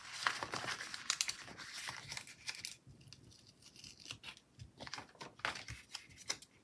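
Paper sticker being peeled off its backing sheet: a rasping paper rustle for the first three seconds or so, then scattered light crinkles and taps as the paper is handled.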